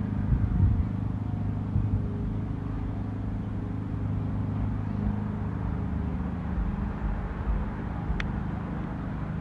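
Strong gusty wind buffeting the microphone: a steady low rumble, with one brief click about eight seconds in.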